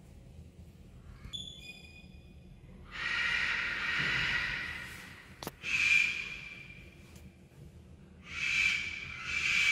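Large parrots squawking with harsh screeching calls: a long one about three seconds in, a shorter one about six seconds in, and a run of repeated calls near the end. A brief whistled note sounds about a second in, and a sharp click comes midway.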